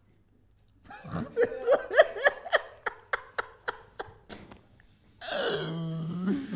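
A person laughing in a run of short, evenly spaced vocal bursts that fade out, followed near the end by a longer drawn-out vocal sound.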